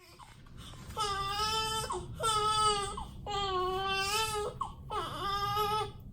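Newborn baby crying: four drawn-out wails of about a second each, with short catches of breath between them.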